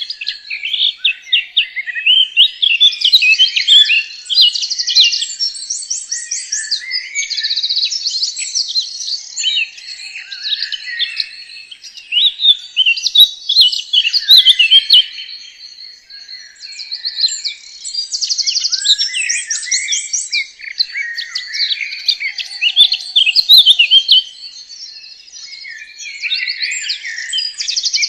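Songbirds singing: several birds chirping and trilling at once in dense, overlapping phrases, with rapid trills repeating every second or two.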